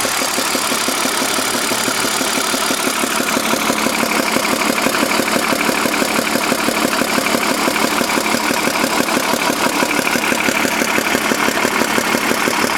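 BMW M52 straight-six engine running at idle with a fast, even rhythmic ticking pulse, the weird knocking-type noise the owner is trying to identify. The pulsing grows more pronounced a few seconds in.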